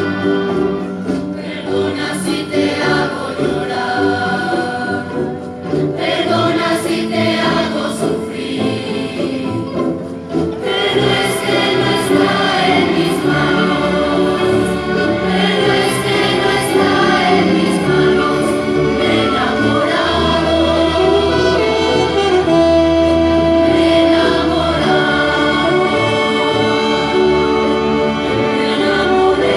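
Youth symphony orchestra and choir performing: choral singing over sustained orchestral chords. The music thins briefly about ten seconds in, then grows fuller.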